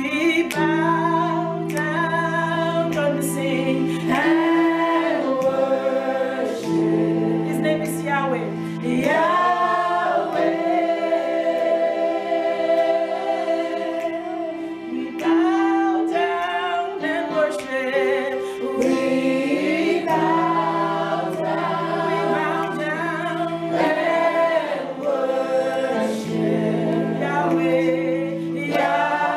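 A woman singing a Christian worship song in long held notes, over steady backing chords that change every few seconds.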